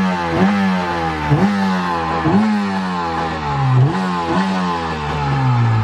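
Jet ski engine running out of the water with hose cooling, its throttle blipped about once a second: each rev jumps up sharply and then sags slowly back toward idle, roughly six times in a row.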